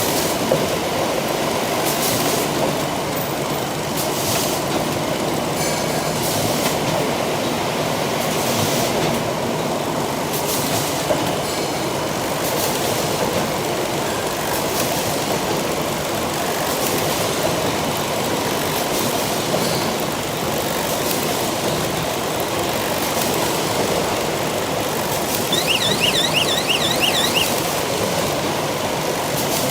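Bag cutting and sewing line running: steady machine noise with a sharp stroke about every two seconds. A brief warbling tone sounds near the end.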